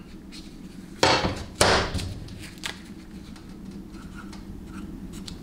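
Two brief, loud clattering noises about a second in, from tools being handled on a workbench. Near the end comes faint scratching of a marker pen writing on the aluminum transmission pump body.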